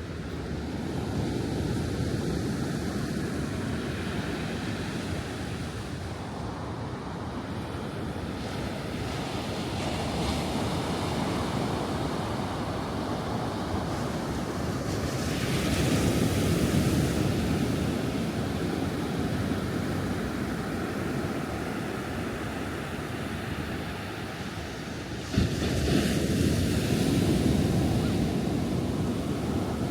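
Ocean surf breaking on a beach: a continuous wash of water that swells and ebbs as each wave comes in, with a sharper, louder break about three-quarters of the way through.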